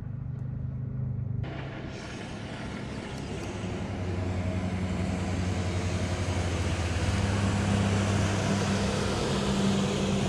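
Jet ski engine droning on the river over a steady hiss, growing louder from about four seconds in.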